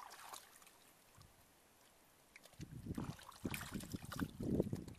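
Shallow muddy water splashing and sloshing as hands grab at fish in it: a light drip and splash at the start, then a quiet stretch, then a quick run of irregular splashes from about halfway through.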